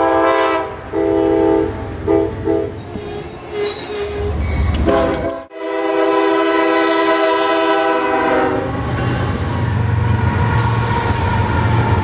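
Locomotive air horns sounding: a series of blasts in the first few seconds, then, after a cut, one long blast of about three seconds. This is followed by the low rumble of a locomotive passing close by.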